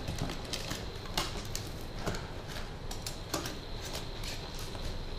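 Knife cutting the packing tape on a cardboard shipping box: an irregular run of short, sharp scratches and clicks.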